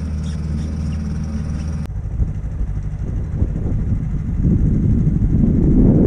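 A small dinghy outboard motor running steadily. About two seconds in it cuts off abruptly and gives way to a gusty, low rumble of wind on the microphone that grows louder toward the end.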